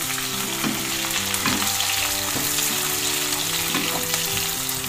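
Sliced onions and crushed garlic sizzling in hot oil in a pan as they are lightly browned, stirred with a wooden spatula that scrapes and knocks against the pan now and then. Soft background music with held notes underneath.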